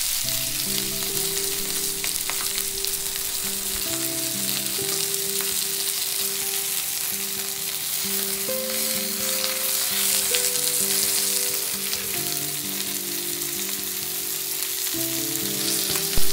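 Chicken thighs frying skin-side down in a non-stick pan, a steady sizzle of rendered fat, while paper towel held in chopsticks is rubbed across the pan to soak up the excess fat. Soft background music with held notes plays under it.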